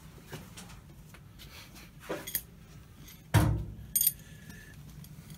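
Metal hand tools being handled on the lathe or bench: light metallic clinks, a loud metal-on-metal knock about three and a half seconds in that rings briefly, then a sharp clink that leaves a short ringing note.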